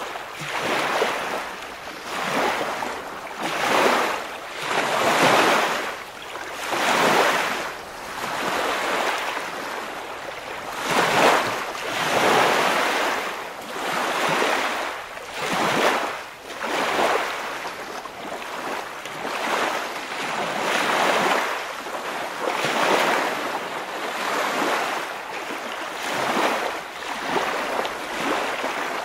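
Ocean waves washing in regular surges, one about every one and a half to two seconds.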